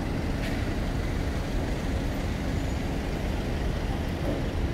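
Steady city street traffic noise: a continuous low rumble from cars idling and crawling along the kerb.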